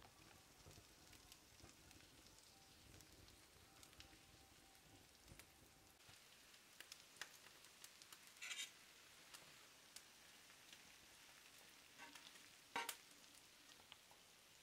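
Fish frying in oil in a pan over a wood fire: a faint steady sizzle with scattered little crackles and clicks, and a sharper click about halfway and again near the end.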